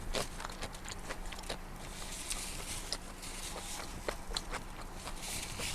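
A person chewing food close to the microphone, with frequent small wet mouth clicks throughout.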